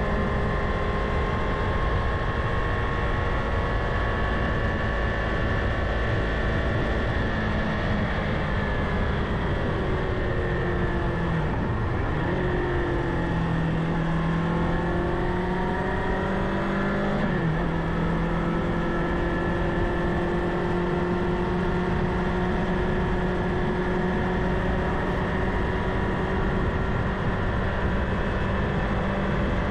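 Kawasaki Ninja 500 parallel-twin engine running under way. Its note falls and changes pitch between about ten and eighteen seconds in, as with easing off and a gear change, then holds steady.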